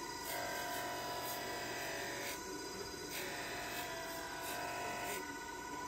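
K.O. Lee surface grinder running with a Scotch-Brite wheel, its table traversing the work back and forth under the wheel. A steady machine whine, with part of the tone dropping out and returning every second or two as the table moves and reverses.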